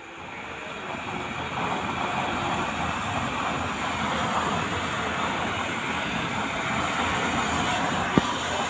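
Home-built waste-oil burner stove running with forced air from its blower, a steady rushing noise of fan and flame that grows louder over the first two seconds. One sharp click near the end.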